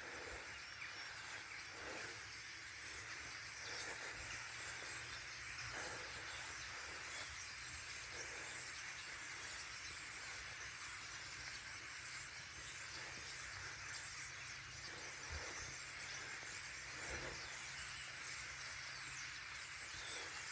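Faint, steady chattering of a huge flock of birds massed in a tree line, thousands of calls blending into one hiss that sounds like running water.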